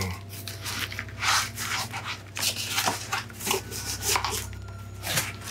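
Cardboard box being opened by hand: a string of irregular rustles, rubs and scrapes as the flaps are pulled apart and a package is drawn out.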